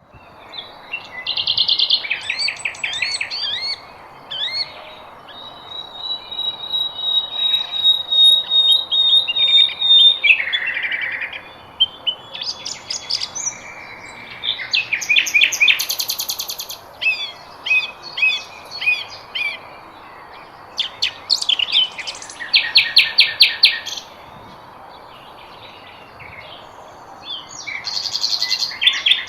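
Songbirds singing a busy, varied mix of chirps, rapid trills and whistles, including one long steady high whistle held for several seconds about five seconds in, over a faint steady background hiss.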